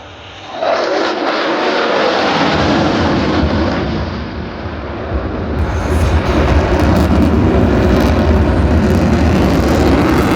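F-35C Lightning II's single F135 afterburning turbofan during a low-level tactical pitch. The jet noise comes in suddenly about half a second in, with a falling pitch as it sweeps past, then settles into a loud steady rumble.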